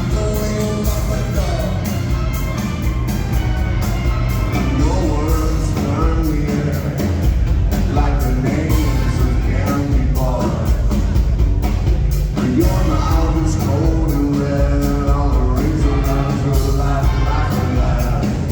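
Live rock band playing: steady bass and drums under melodic lines that bend and slide in pitch.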